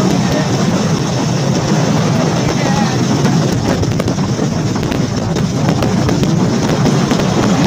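Motorcycle engine running steadily under way, with wind rushing over the microphone.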